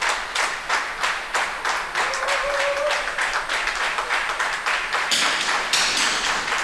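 Spectators clapping together in a steady rhythm, about three claps a second.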